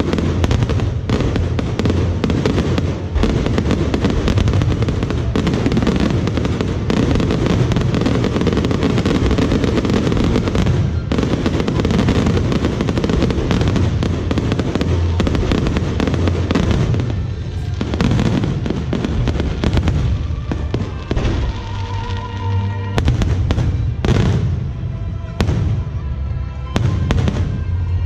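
Fireworks display going off in a dense, continuous barrage of bangs and crackling. The firing thins out in the last third, and music with held tones comes through between the bursts.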